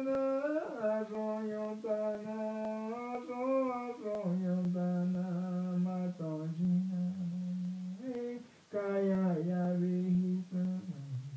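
A male voice singing an icaro, an Amazonian ayahuasca healing song, without words: long held notes that glide and step downward between pitches, with a short pause for breath a little past halfway.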